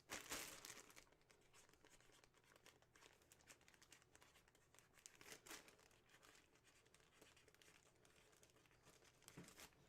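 Near silence, with faint rustling and scattered light clicks; a brief louder rustle comes right at the start.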